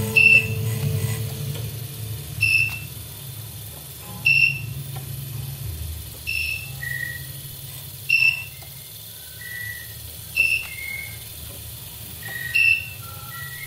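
Experimental electronic sound-art performance: a short, high beep-like tone repeats about every two seconds. From about seven seconds in, shorter, lower tones at shifting pitches join it, over a low hum that fades away during the first six seconds.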